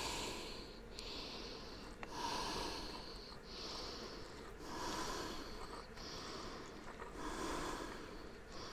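A person breathing audibly close to the microphone, a steady in-and-out rhythm of about one breath every second or so.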